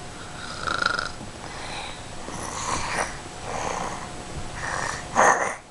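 Snoring: a run of noisy breaths about one each second, the loudest just before the end.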